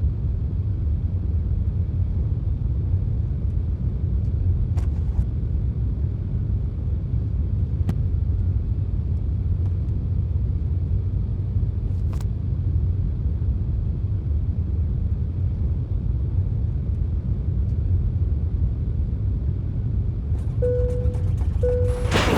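Steady low rumble of a running vehicle, with a few faint clicks and two short beeps near the end.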